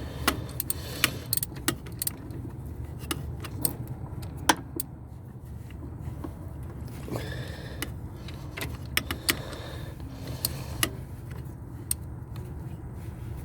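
Metal tools and parts being handled, with irregular sharp metallic clinks and clicks, over a steady low hum.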